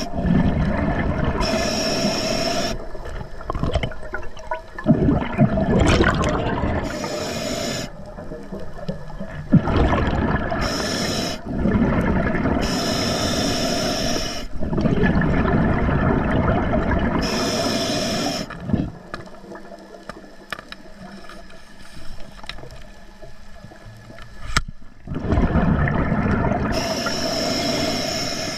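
Scuba diver breathing through an Atomic regulator underwater: several breath cycles of short hissing inhalations alternating with rumbling, bubbling exhalations. A quieter stretch follows in the second half, then one more breath near the end.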